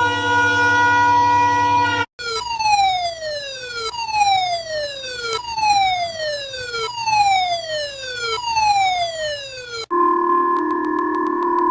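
Electronic emergency alert alarm tones. A steady buzzy tone cuts off about two seconds in. It is followed by a falling siren-like tone that sweeps downward in pitch and repeats about every one and a half seconds, five times. Near the end a new steady chord-like alarm tone starts.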